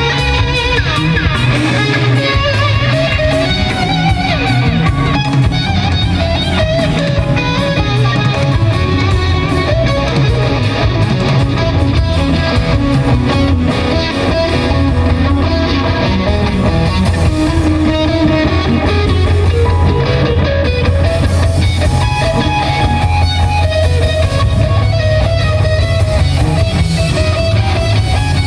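Live rock music: an electric guitar playing an extended solo passage over a steady low sustained note, loud through the venue's amplification.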